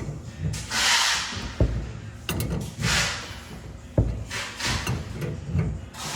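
Work noises from loosening a gas line fitting: a few sharp knocks and short scraping sounds, each scrape about half a second long.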